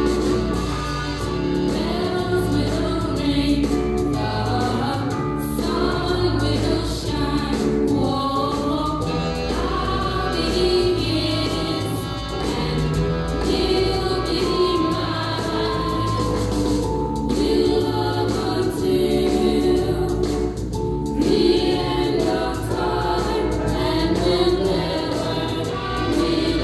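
Choir singing a gospel-style song, with sustained sung notes over a steady bass.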